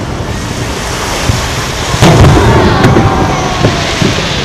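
Aerial fireworks shells going off, with a continuous rumble of booms. A sharp, loud bang comes about two seconds in and a weaker one just under a second later, and a falling whistle follows the first bang.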